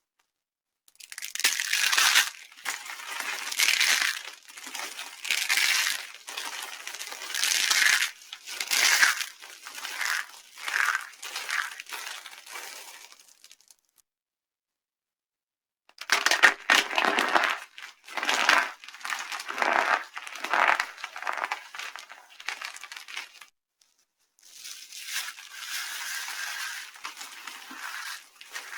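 Dry soap being crushed, with crisp crunching and crumbling in three long runs and short silent pauses between them.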